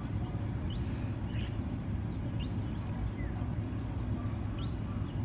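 Small birds chirping now and then, a handful of short, quick upward-sliding chirps, over a steady low outdoor rumble.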